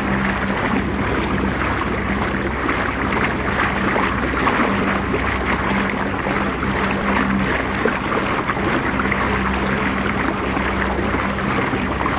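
A boat's engine running steadily as the vessel moves under way. It is heard through a heavily worn Super 8 magnetic soundtrack, with a constant hiss and crackle over it.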